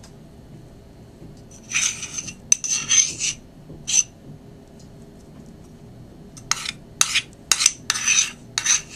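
Metal spoon scraping chunky peanut butter against a stainless steel mixing bowl in short strokes: about three strokes a couple of seconds in, then a quicker run of about five near the end.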